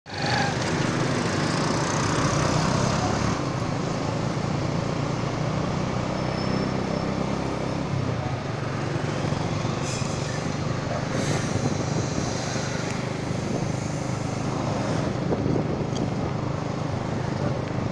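Steady engine drone and road noise from riding in a moving vehicle through city traffic, with motorbikes and cars passing.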